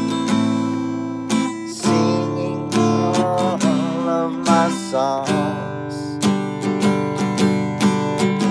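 Acoustic guitar strummed in a steady rhythm, chords ringing between strokes about every half second to a second.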